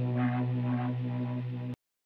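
Intro music: a steady low sustained drone with fainter notes above it, cutting off abruptly near the end, followed by dead silence.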